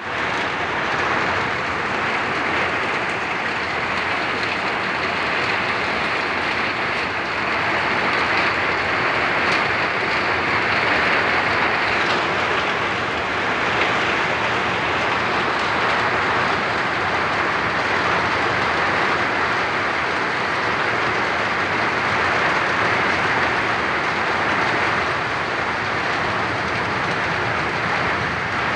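Heavy rain falling steadily, an even hiss of a storm downpour.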